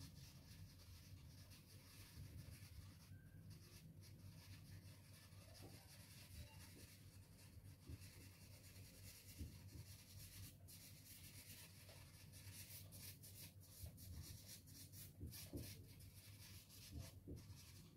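Faint scratching and rubbing of a soft pastel stick shading on paper, in many short strokes that come thicker over the last few seconds.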